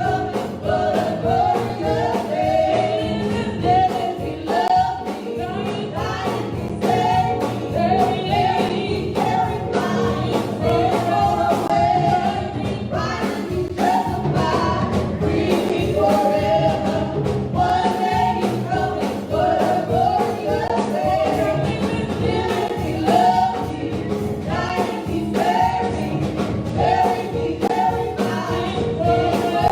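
Gospel music with a choir singing over a band with a steady beat.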